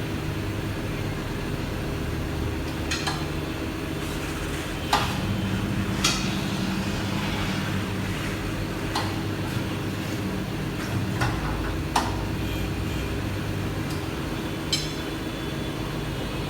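Tyre-fitting work on car wheels: sharp metal knocks and clanks, about eight at irregular intervals, over a steady machine hum.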